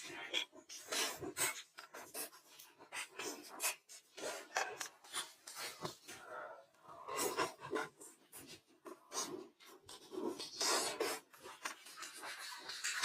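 Close-miked eating sounds: quick, irregular crunching and chewing of food.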